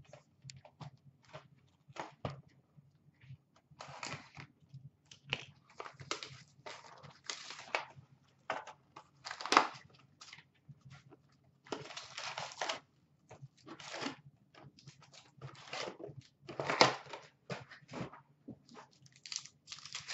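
Hockey card hobby box being opened and its packs torn open by hand: cardboard and foil wrappers rustling, crinkling and tearing in irregular bursts, the loudest about halfway through and again near the end.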